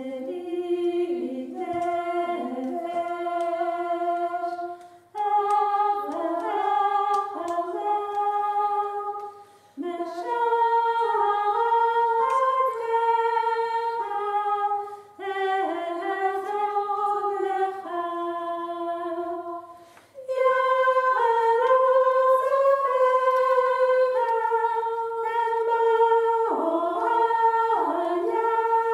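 A woman's voice singing a slow melody unaccompanied, in phrases of about five seconds with short breaks between.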